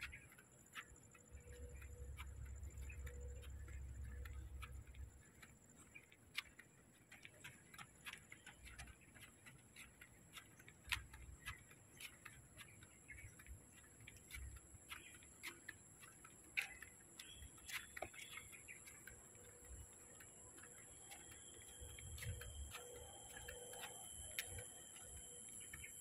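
Faint outdoor evening ambience: scattered light ticks and clicks, a steady high-pitched hum, and occasional faint bird chirps. A low rumble comes in for a few seconds near the start and again near the end.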